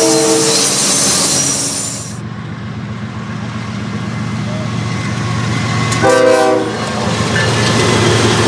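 Locomotive air horn sounded as a horn show: a brief chord at the start and a second short blast about six seconds in. Under it a train rumbles past, with loud rail and wheel noise for the first two seconds, then a quieter steady rumble.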